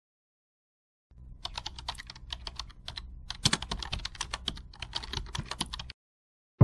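Computer keyboard typing sound effect: a rapid run of key clicks starting about a second in and stopping about a second before the end.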